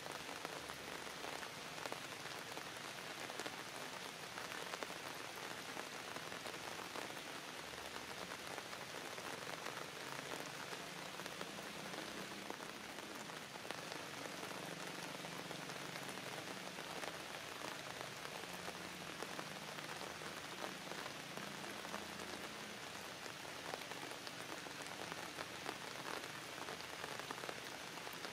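Steady rain falling, a continuous hiss thick with small drop hits.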